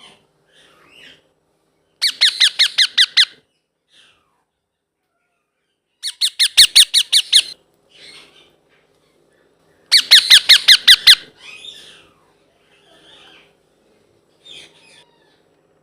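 Young blue Indian ringneck parakeet calling: three bursts of rapid, high-pitched repeated squawks, each a little over a second long, with softer calls between them.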